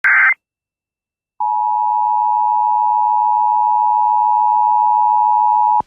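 Emergency Alert System broadcast: the brief tail of a SAME header data burst, then after about a second of silence the EAS two-tone attention signal, a loud steady tone that cuts off sharply just before the tornado warning message.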